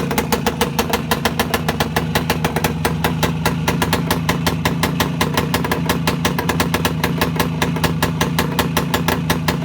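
Voskhod 3 motorcycle's single-cylinder two-stroke engine idling steadily with an even, rapid beat, freshly rebuilt after a major overhaul.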